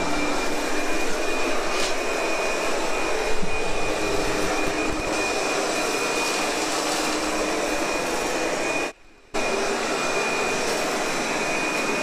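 Ultenic TS1 robot vacuum cleaner running steadily while it drives across the floor: an even suction rush with a constant high-pitched whine. The sound cuts out for a split second about nine seconds in.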